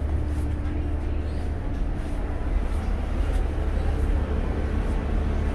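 Steady low rumble of a Freshwater class ferry's engines running, heard from on board while the ferry waits at its berth before departure.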